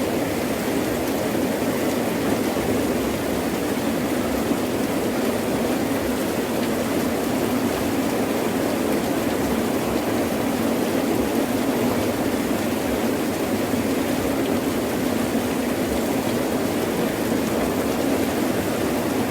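Heavy rain falling steadily in an even, unbroken wash of sound.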